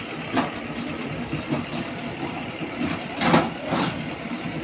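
Leaf spring roller machine running as a steel truck spring leaf passes through its geared rollers: a steady mechanical drone with a few sharp metallic clanks, the loudest about three seconds in.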